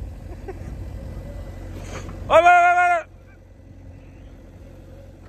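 JCB 3DX backhoe loader's diesel engine running with a low rumble. About two seconds in, a man lets out one loud, long held shout that cuts off sharply, and the rumble is quieter after it.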